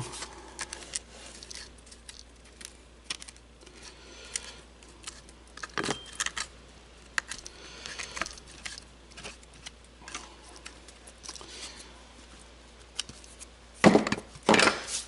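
Scattered light clicks, taps and rustles of a plastic door trim panel and hand tools being handled, with two louder knocks near the end.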